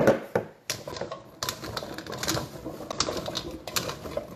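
Raw sweet potato fries being tossed by hand in an air fryer basket: a fast, irregular clatter of small clicks and knocks.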